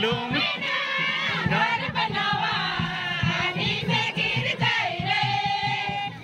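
A group of women singing a folk song together in chorus, many voices overlapping in a continuous sung melody.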